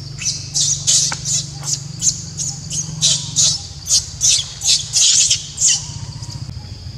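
Young macaque screaming in a rapid series of short, high-pitched squeals, about three a second, while being chased over its mango. The calls stop about six seconds in.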